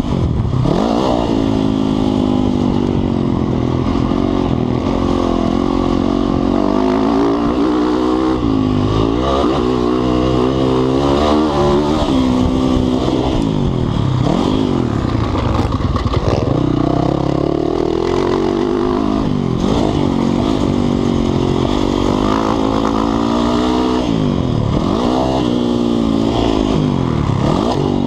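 Motocross bike engine heard close from the rider's onboard camera, revving up and falling back over and over, with a sharp drop in pitch every few seconds as the rider works around a dirt track.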